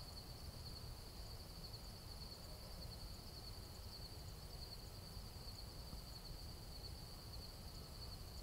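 Crickets or other insects keep up a steady, high, continuous trill, over a faint low rumble of wind on the microphone.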